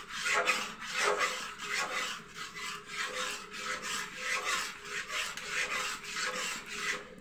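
Metal spatula scraping around a metal kadhai while stirring thick mango pulp, in repeated strokes about two a second.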